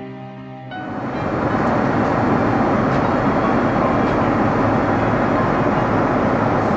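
Background music stops under a second in, giving way to the steady cabin noise of a Boeing 787-9 airliner in flight: an even rush of airflow and engine noise that holds at one level.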